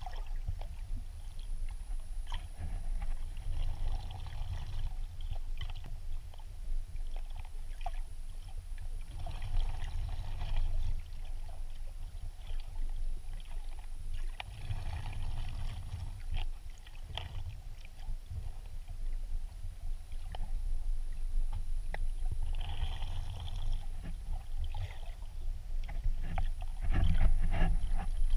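Underwater ambience picked up by a submerged camera: a steady low rumble of moving water with scattered clicks and crackles, and a few short rushes of hiss every several seconds.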